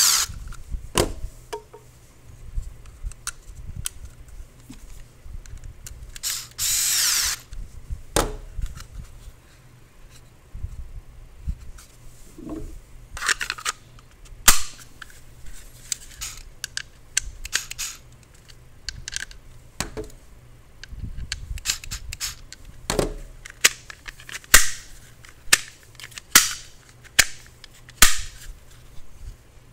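Blue plastic training pistol pushed into and drawn out of a Kydex holster, giving repeated sharp clicks as it snaps past the retention, about once a second in the second half, with handling rustle between. A louder rushing noise lasts about a second, about seven seconds in.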